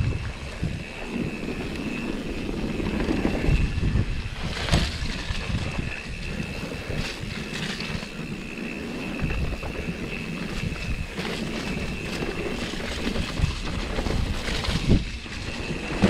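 Wind buffeting the microphone, an irregular low rumble, over a steady high whine. A couple of sharp knocks come about five seconds in and near the end.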